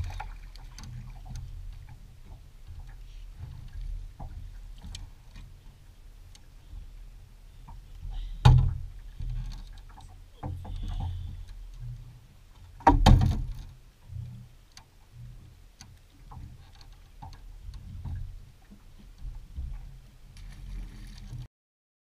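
Wind buffeting a small action-camera microphone, with scattered small knocks and two loud thumps, about eight and thirteen seconds in, as a fish is fought, netted and handled on the boat's deck.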